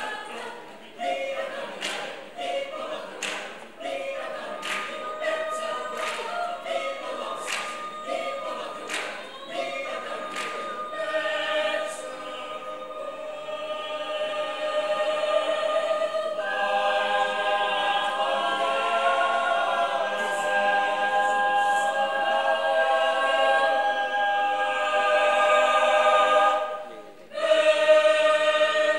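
Mixed choir singing a cappella. The first part is punctuated by short, sharp, crisp accents. The choir then swells into sustained, held chords, which break off briefly near the end before the singing resumes.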